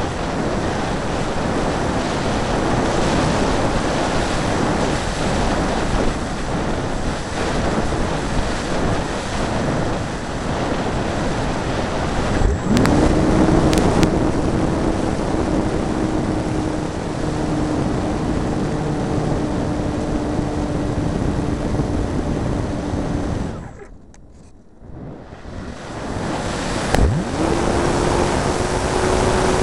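Air rushing past the onboard camera of a radio-controlled electric hotliner glider in flight. About twelve seconds in, the electric motor spins up with a quick rising whine and settles to a steady hum. Near the end the sound drops away for a moment, then the motor spins up again.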